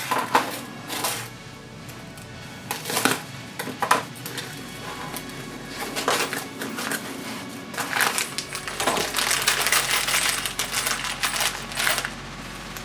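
Loose metal bolts, nuts and washers clinking and rattling against each other as a box of mounting hardware is opened and handled, with a dense run of clinks in the second half.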